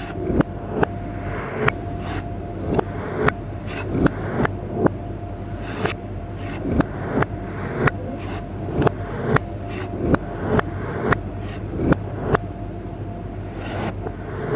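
Knife chopping vegetables on a cutting board: a run of sharp knocks, about two a second, each stroke slicing through and striking the board, over a steady background hum.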